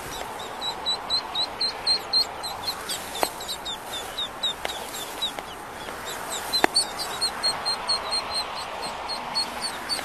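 Ducklings peeping: a rapid string of short, high peeps, about three or four a second, over a steady background hiss. A few sharp clicks cut in, the loudest about two-thirds of the way through.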